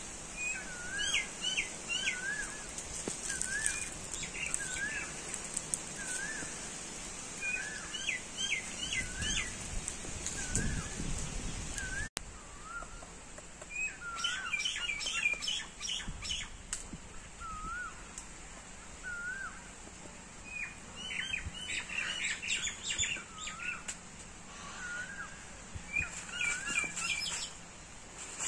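Songbirds calling in the trees: one bird repeats a short up-and-down whistled note about once a second, while another gives quick runs of descending chirps every few seconds. A steady high-pitched hum runs underneath.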